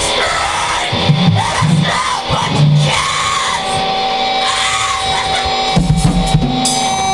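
Heavy metal music with a drum kit, from a home-produced death metal track; a long held note comes in about halfway through.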